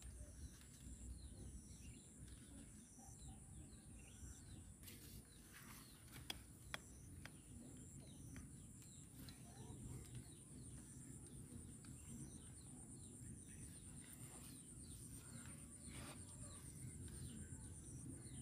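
Near silence: faint outdoor ambience with scattered faint bird chirps and a steady faint high-pitched tone, and two small clicks about six seconds in.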